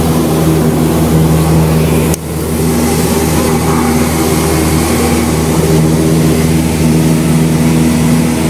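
Cessna 172's piston engine and propeller droning steadily at flight power, heard inside the cabin, with a low even hum under the rush of air. One brief click and a short dip in loudness about two seconds in.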